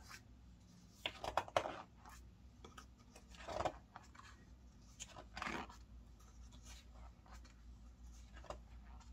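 Pages of a thick photobook being turned by hand, each turn a short papery swish or rustle, a few seconds apart.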